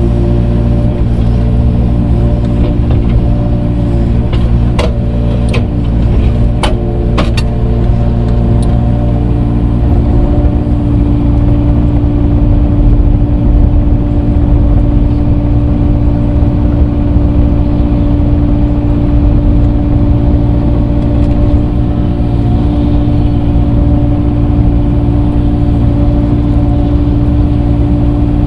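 Engine of a grading machine working dirt with a grading bucket, running steadily. A few sharp clanks come between about four and seven and a half seconds in.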